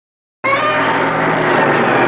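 Godzilla roar sound effect: a loud, pitched cry with several tones over a rough noisy body, starting suddenly out of silence about half a second in and held steadily.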